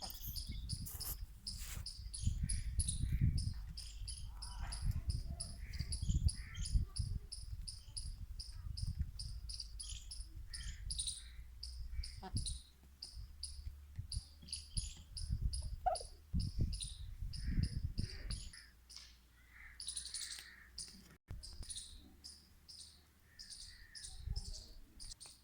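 Crickets chirping in a steady rhythm, about three short high chirps a second, over a low rumble that fades out about two-thirds of the way through.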